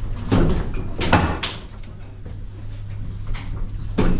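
Mill-driven wooden stamper of a windmill oil mill's wedge press pounding the wedge, a few heavy knocks, irregularly spaced, over the steady low rumble of the mill's running gear; the blows drive the wedge in to squeeze oil from the seed cakes. Quite noisy.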